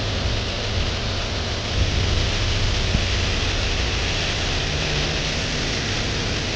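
Waterfall cascading down a rock wall, a steady rush of falling water.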